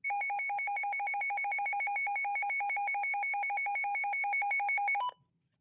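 Midland WR-100 weather radio sounding its alert test siren: a loud electronic tone warbling rapidly. It cuts off about five seconds in with a short higher blip.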